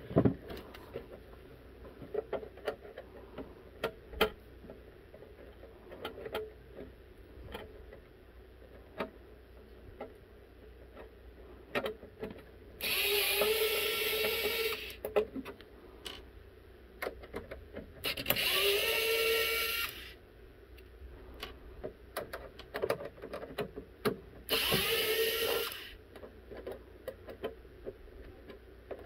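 Small electric power screwdriver motor running in three bursts of about two seconds each, the pitch rising as it spins up and then holding. Between the bursts come light clicks and taps of the screwdriver bit against the plastic case.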